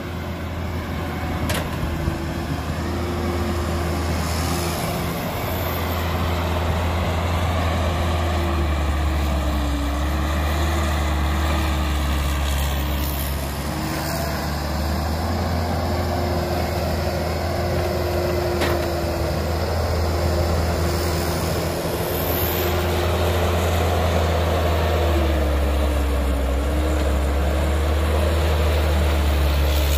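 Caterpillar diesel excavator working, digging and swinging to load a dump truck: a steady diesel drone with a hydraulic whine on top that wavers and dips in pitch now and then. A few faint knocks stand out here and there.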